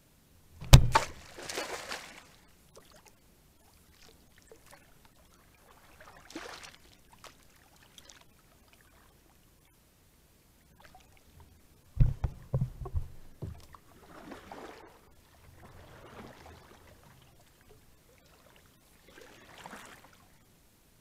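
A sharp knock and splash about a second in, then, past the middle, a quick run of knocks against the plastic kayak hull with water splashing, followed by quieter water sloshing and churning beside the boat.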